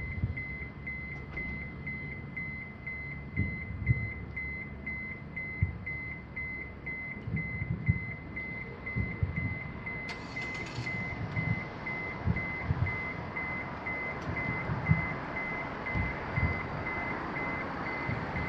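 Distant aerial firework shells bursting as irregular low booms, coming in quick clusters at times. Under them runs a high electronic beep repeating evenly and rapidly.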